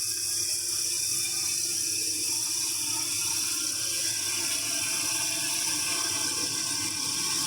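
Steady, high chorus of night insects over an even rushing noise.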